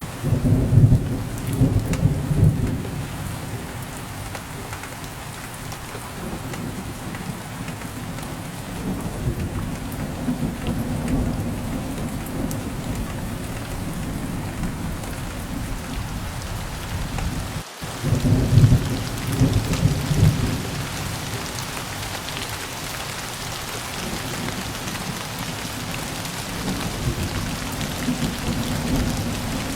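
Steady rain falling, with rolling thunder rumbling twice: near the start and again about two-thirds of the way through. Just before the second rumble the sound cuts out for a moment.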